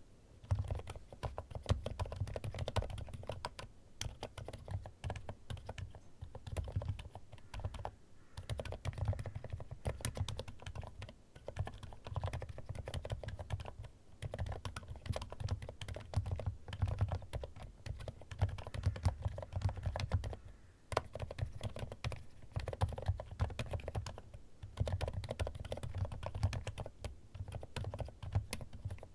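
Weikav D75 mechanical keyboard being typed on in fast continuous runs of keystrokes, with short pauses every few seconds. The strokes are deep, with most of their weight low down.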